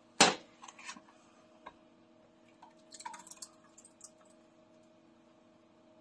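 A sharp knock just after the start, then scattered light clicks and taps as kitchen items are handled on a countertop, over a faint steady hum.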